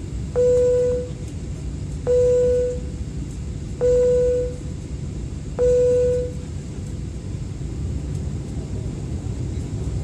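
Four identical short electronic chime tones, evenly spaced about 1.7 seconds apart, over the steady low rumble of an airliner cabin while the aircraft waits to take off.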